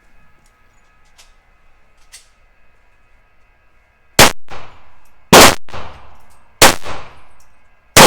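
Four gunshots at an indoor shooting range, fired at a slow, even pace about 1.3 seconds apart, each with a short echoing tail. They begin about four seconds in, after a stretch of quiet.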